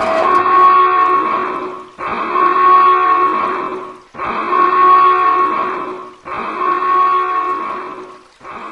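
A deep, bell-like tone of several stacked pitches, sounding five times about every two seconds, each starting suddenly and dying away before the next.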